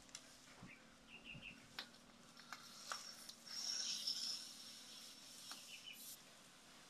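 Small bird chirping in quick three-note bursts, about a second in and again near the end, with a louder high trill in the middle. Faint scattered clicks and taps sound alongside.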